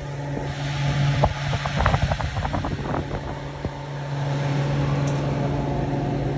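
Steady low machine hum, with a scatter of clicks and knocks over the first few seconds.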